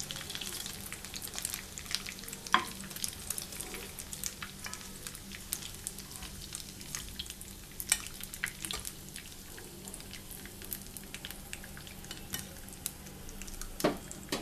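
Hot oil sizzling and crackling in a frying pan as fried beef kababs are spooned out, with a few sharper clicks standing out and a faint steady low hum underneath.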